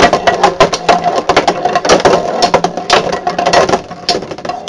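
Two metal-wheeled Beyblade spinning tops battling in a plastic stadium: rapid, irregular clacking as they collide and skid against each other and the stadium floor, over a steady whir of spinning.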